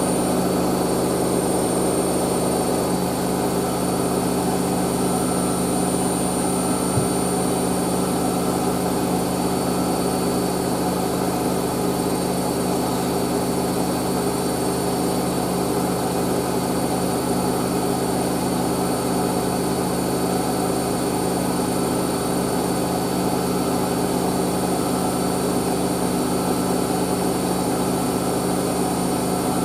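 Hoover SIX AAA160 washing machine on a 1600 rpm spin: the drum spinning steadily at high speed, with a constant hum and a high whine.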